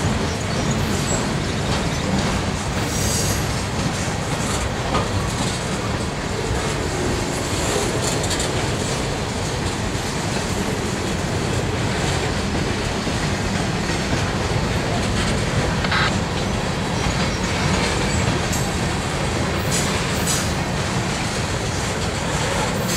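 Freight train cars (tank cars, boxcars and covered hoppers) rolling past close by: a steady rumble and clatter of steel wheels on rail, with a few brief sharp high sounds scattered through.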